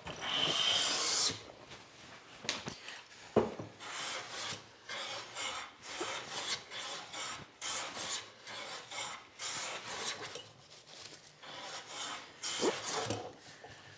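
Steel hand plane shaving a wooden board. A long stroke runs through the first second or so, then comes a run of short strokes about one a second, with two sharp knocks, the first one loud.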